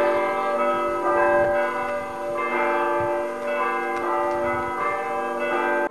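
Bells ringing a sequence of notes, struck about twice a second, each note ringing on and overlapping the next.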